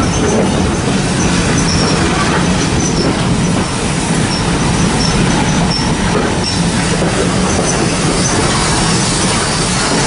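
Running noise of a heritage railway passenger coach on the move, heard at its window: a steady, loud rumble and rattle of wheels on rail, with faint high wheel squeals in the first half.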